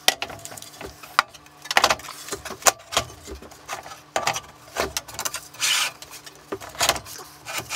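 Sheet-metal and plastic parts of a JGaurora A5 3D printer being handled and set in place: scattered knocks, clicks and clunks, with a couple of brief rustles of packaging.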